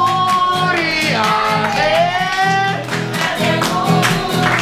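Acoustic guitar strummed in a steady rhythm, with voices singing along.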